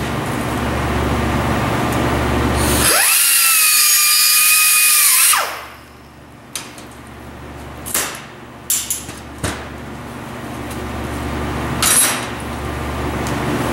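A high-speed power tool spins up with a loud, high-pitched whine, holds steady for about two and a half seconds as it cuts through tape-wrapped braided hose, then winds down. A few light knocks and a short hiss follow.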